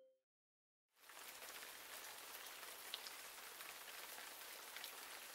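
Steady rain falling on a wet street, coming in about a second in after a brief silence, with a few faint sharper drop ticks.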